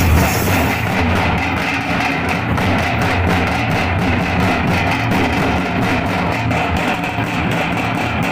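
Music with drums beating a steady fast rhythm under a strummed, guitar-like string instrument.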